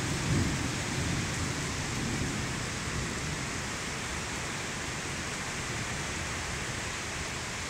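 Steady rain falling, an even continuous hiss of rain on the balcony and the pavement below, with a low rumble in the first couple of seconds that then settles.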